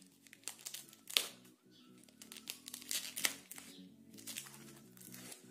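Foam-sheet and packing-tape wrapping crinkling and tearing in short irregular bursts as a knife cuts it open, loudest about a second in, over steady background music.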